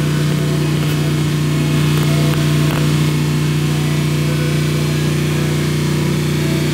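Steady mechanical hum with a constant hiss of bubbling water, from the air pump of an illuminated bubble water wall.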